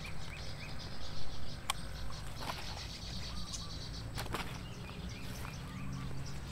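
Outdoor ambience with faint chirping of birds and insects over a steady low rumble, broken by a few sharp clicks and rustles from handling a fish in a landing net during unhooking.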